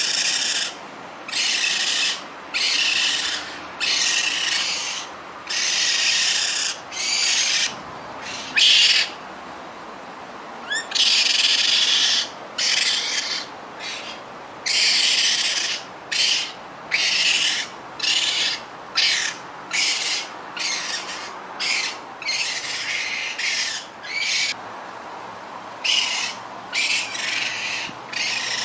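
Baby raccoons calling with a long series of short, harsh, hissing screeches, one after another with brief pauses between.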